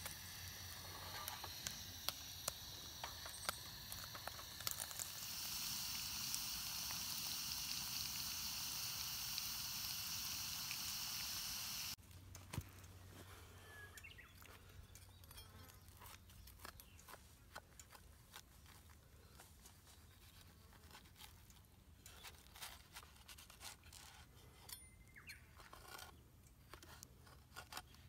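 A steady sizzling hiss from a sandwich cooking in a hot sandwich maker over a gas camp stove, louder from about five seconds in. It stops abruptly partway through. Then comes a run of crisp crunching and scraping as a knife saws through the toasted sandwich crust.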